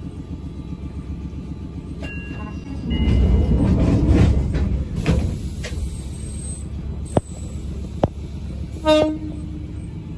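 Choshi Electric Railway train heard from inside the car: the steady rumble of the train running on the rails swells loudly for about two seconds a few seconds in. There are two sharp clicks, then a short toot of the train's horn near the end.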